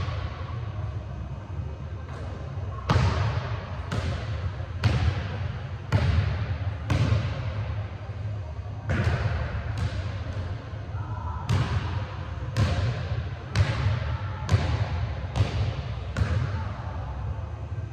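A basketball bounces on a hardwood gym floor roughly once a second, each impact ringing with the echo of a large hall. A steady low hum sits underneath.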